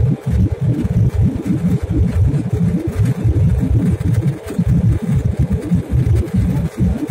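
Airliner cabin noise at a window seat: the jet engines and airflow make a loud, low rumble that flutters rapidly in level, with a faint steady hum above it.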